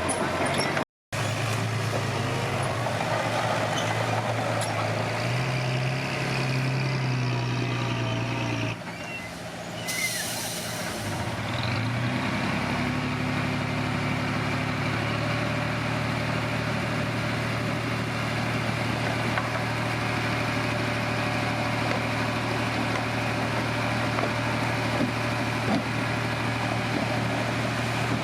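Komatsu D21P bulldozer's diesel engine running steadily. Its pitch rises about five seconds in, then drops and goes quieter near nine seconds, with a brief hiss. It then settles back to an even note for the rest of the time.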